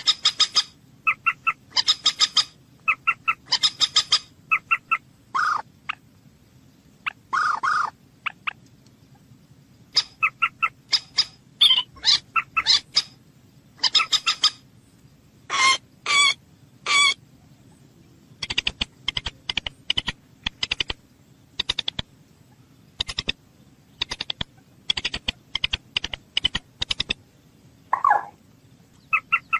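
Common moorhen calling: a series of short, sharp call notes repeated in quick clusters, then a fast run of short clicking notes in the second half.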